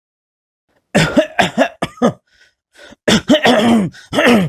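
A man's voice-acted coughing fits: a run of short, voiced coughs about a second in, then another harder fit from about three seconds in, each cough dropping in pitch. It is the persistent cough of a sick man.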